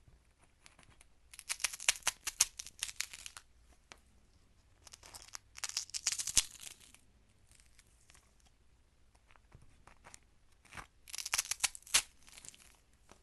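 Crisp crackling and crunching: three bursts of rapid, sharp cracks, each lasting one to two seconds, with a few single cracks between them.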